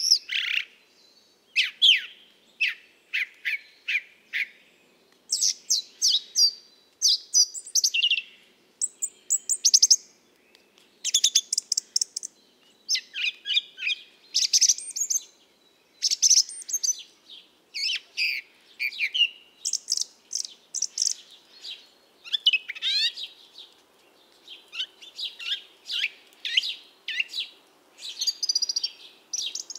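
Birdsong: a steady run of chirps, rapid trills and short downward-sliding whistles, one phrase after another with brief pauses between them.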